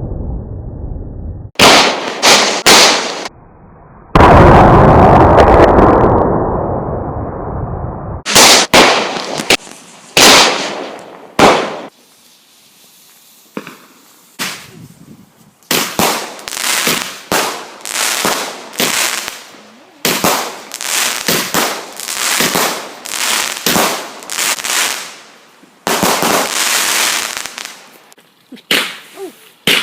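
Fireworks going off: a few sharp bangs, then a big boom that dies away over a couple of seconds, and more bangs. After a short lull about halfway, a long run of evenly spaced bangs follows, a little more than one a second.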